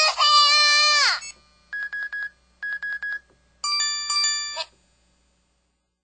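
IM-U130 mobile phone playing its low-battery alert sounds: a loud electronic tone lasting about a second that drops in pitch at its end, then two short bursts of rapid beeps, then a brief multi-note chime ending just before five seconds in.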